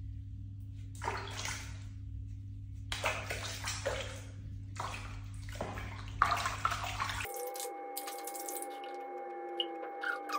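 Water sloshing and splashing in a plastic basin as a hand scoops it over a cat being bathed, in several short bursts over a steady low hum. About seven seconds in, the hum stops and a steady tone with a lower sliding whine takes over.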